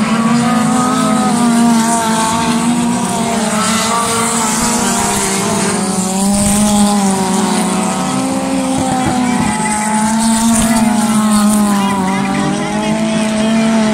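Several 2.1 Modified race cars' engines running hard together, their pitch rising and falling over and over as they accelerate and ease off around the oval.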